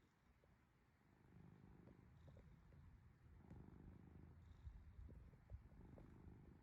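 A sleeping cat snoring faintly, a low rumble that swells and eases in a slow, even rhythm.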